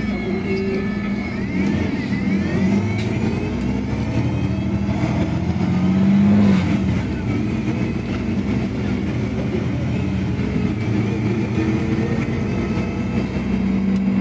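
Iveco Urbanway 18 articulated natural-gas bus with a Voith automatic gearbox, heard from inside while accelerating. The engine and gearbox whine rises in pitch over the first six seconds or so, then the bus runs on at a steady hum.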